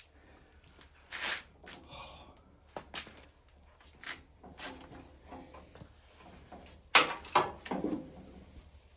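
Clothing rustling as a sweatshirt is pulled off: a string of short scuffing and swishing sounds, the loudest about seven seconds in.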